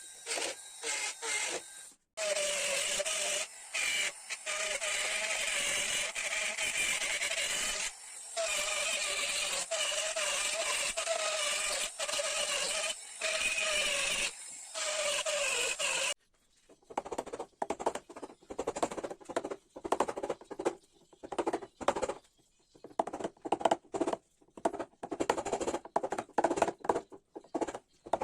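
A power carving tool cutting into ash wood, its pitch wavering under load, running in spells that stop abruptly. About two-thirds of the way in it gives way to a rapid, irregular run of short scraping strokes of a hand tool on the wood.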